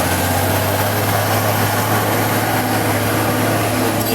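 Heavy road-construction vehicle engine running steadily with a low, even hum.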